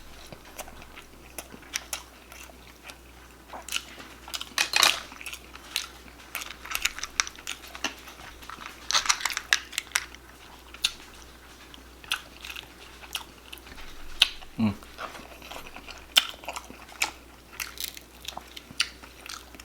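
A person chewing and eating food: irregular wet chewing and lip-smacking clicks, with a few louder smacks.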